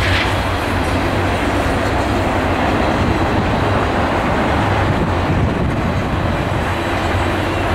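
CSX diesel freight locomotives running past with a steady, loud, deep engine hum mixed with rolling rail noise.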